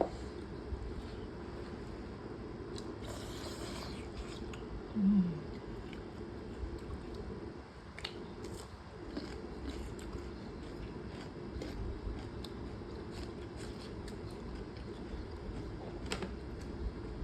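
A person eating spicy instant noodles: chewing and biting, with scattered small clicks of a utensil. A brief low hum about five seconds in.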